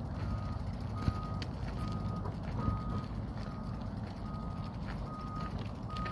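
Electronic beeper sounding a single short high tone over and over, evenly spaced a little more than once a second, like a vehicle's reversing alarm, over a steady low rumble of wind on the microphone.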